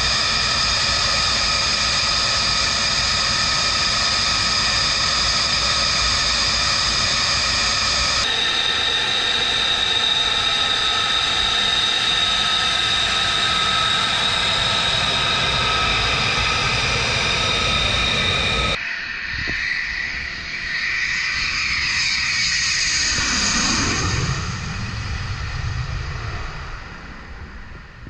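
An F-35A's single F135 turbofan whines steadily on the ground. After a cut, the jet rolls past with a clear drop in pitch and fades away down the road.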